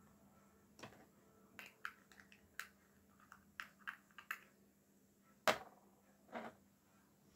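Light, irregular clicks and taps of small makeup items being handled, with a louder knock about five and a half seconds in and another about a second later.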